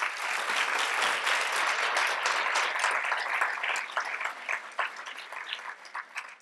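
Audience applauding in a hall. The clapping is loud at once, holds for about four seconds, then thins to scattered claps and dies away near the end.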